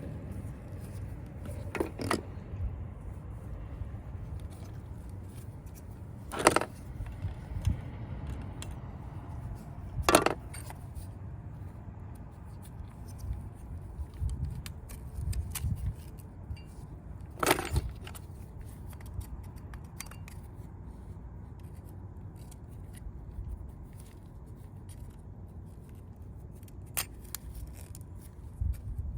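Hand tools and small metal parts clinking and clicking as they are handled, a handful of sharp knocks several seconds apart, over a steady low rumble.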